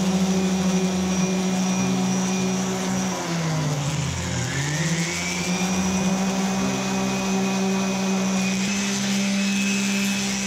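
DeWalt random orbital sander running steadily while sanding the face of a scroll-sawn wooden sign. Its motor pitch dips about three seconds in and climbs back up a second or so later.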